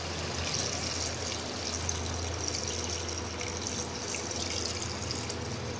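Water poured in a steady stream into a metal pressure-cooker pot of browned mutton and masala, filling it until the meat is covered before pressure-cooking.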